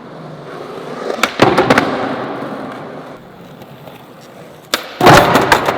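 Skateboard: a cluster of sharp clacks about a second in, then wheels rolling and fading away, and a louder burst of clacks and impacts near the end.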